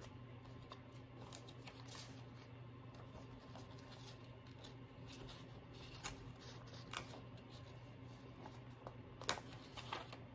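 Faint clicks and light rustling as metal tweezers lift stickers off a clear sticker sheet and press them onto planner pages, over a low steady hum; a sharper click comes about nine seconds in.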